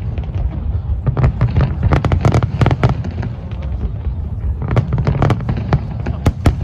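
Aerial fireworks shells bursting in quick, irregular succession: many sharp bangs over a steady low rumble, thinning briefly about halfway through before picking up again.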